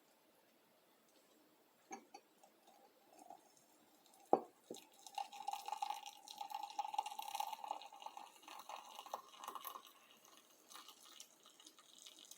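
Hot tea poured into a cup: a sharp knock, then a steady pouring stream for about five seconds whose pitch rises slightly as the cup fills, followed by a few drips.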